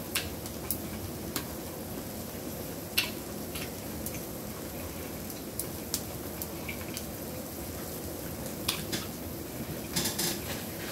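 Close-up chewing and wet mouth sounds of a person eating king crab meat, with scattered small sharp clicks and taps from fingers, shell and plate. There is a quick cluster of clicks near the end.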